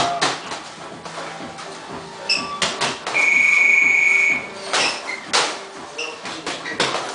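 Boxing gloves smacking into focus mitts: a string of sharp hits, roughly one every second or so. Midway through, a steady high electronic beep sounds for just over a second, and it is the loudest sound here.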